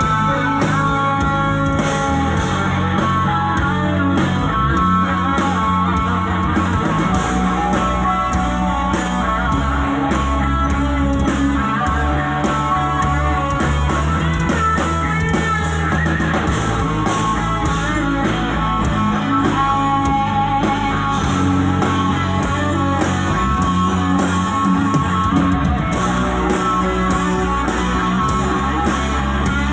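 Rock band playing an instrumental passage without vocals: guitar over bass and drum kit.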